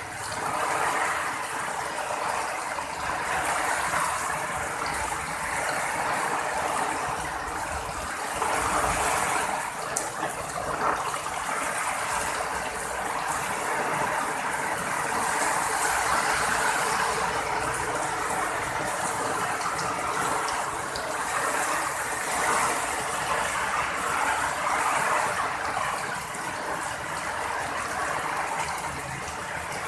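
Heavy rain pouring steadily onto a paved road: an even, rushing hiss of falling water.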